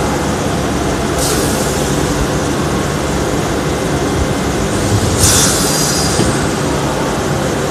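Thermoforming vacuum packaging machine running with a steady mechanical hum, broken twice by a sharp hiss of air about a second long, once about a second in and again about five seconds in, as the machine cycles.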